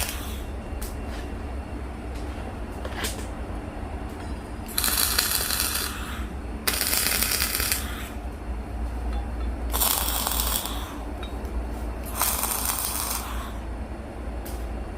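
Arc welding on flat steel bar in short runs: four crackling, sputtering bursts of about a second each, over a steady low hum.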